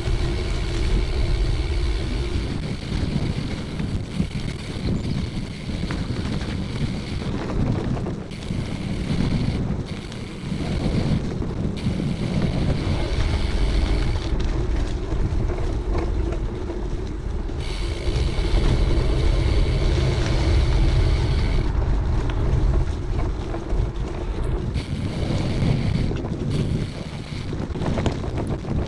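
Wind buffeting the microphone of a camera on a moving cyclocross bike, a heavy uneven rush that rises and falls, with the rolling noise of riding a gravel forest track underneath.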